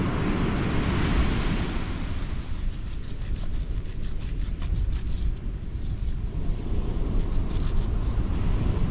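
Wind rumbling on the microphone, with a run of quick, crisp clicks from about two and a half to six seconds in as a knife cuts a fillet from a West Australian salmon.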